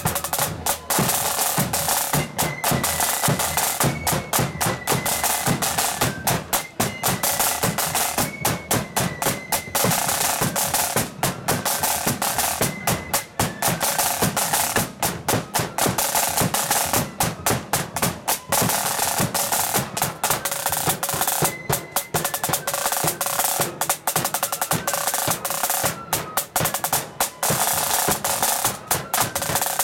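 Marching flute band: a line of side drums playing a fast, continuous pattern full of rolls over a bass drum beat, with flutes carrying a melody above the drums.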